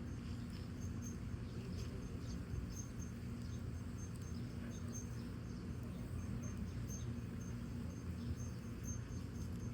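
Firewood burning in a fire pit with a low steady rumble and faint, irregular crackles. A high chirp at one pitch repeats about twice a second throughout.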